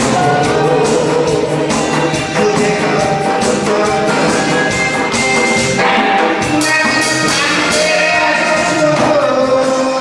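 Music: a man sings through a microphone and PA over an accompaniment, with a janggu (Korean hourglass drum) beaten in a steady rhythm.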